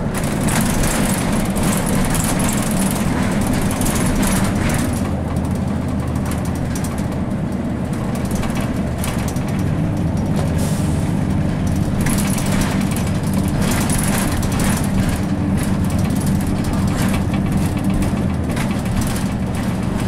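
Cummins ISC inline-six diesel of a 2002 Blue Bird CS transit bus running under way, heard from inside the cabin near the front, with road noise and frequent clicks and rattles. The engine note shifts a few times.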